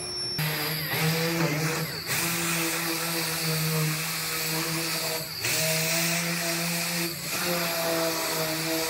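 Right-angle air die grinder with a surface-conditioning disc running at high speed on sheet metal: a steady whine with air hiss that dips briefly and picks back up a few times.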